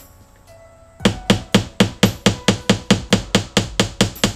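Hammer tapping a drywall anchor into the wall: sharp, evenly spaced blows about four a second, starting about a second in.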